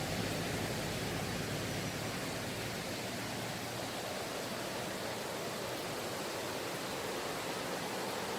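Steady rushing of flowing water in a mountain valley stream. A faint low hum fades out in the first few seconds.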